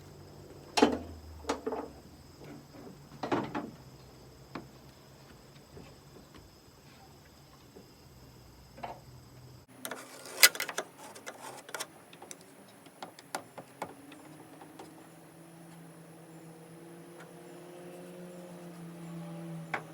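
Sharp knocks and clicks from a stuck sliding side window on a 1962 Land Rover Series 2a being pushed and tugged in its dirt-clogged metal channel, a few separate strikes with quieter scraping between. In the second half a faint steady hum comes in and slowly swells.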